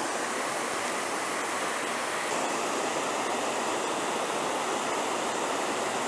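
Small waterfall cascading over stepped rock ledges: a steady, even rush of falling water.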